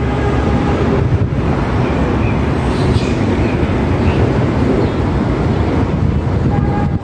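Loud, steady street traffic noise: passing vehicles' engines and tyres.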